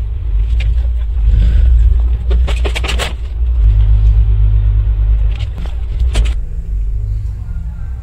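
Steady low engine rumble, with sharp clicks and knocks: one just after the start, a quick cluster around three seconds in, and another cluster around six seconds in.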